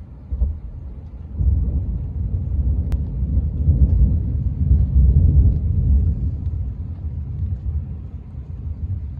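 Rolling thunder: a deep rumble that starts under a second in, swells to its loudest midway and slowly dies away.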